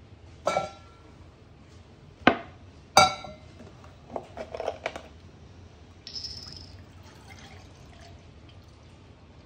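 A steel milk-frothing pitcher set down on the counter with ringing metallic knocks, the loudest about two and three seconds in, then small clicks and a short hiss as the milk carton is opened, and milk pouring from the carton into the pitcher near the end.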